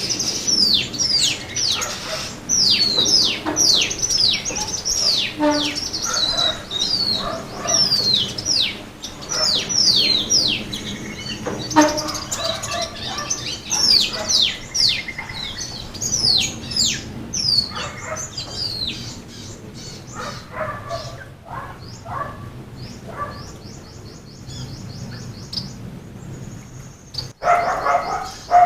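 Many small aviary birds chirping, a quick run of high calls sweeping downward, several a second, thinning out after the middle into a fast, high trill. A dog barks near the end.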